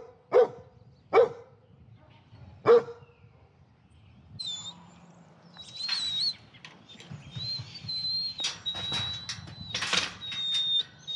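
A dog left alone barks sharply four times in the first three seconds, then whines in a long, high, wavering tone while jumping up against a wire gate, with scattered knocks and rattles. The barking and whining are separation-anxiety distress.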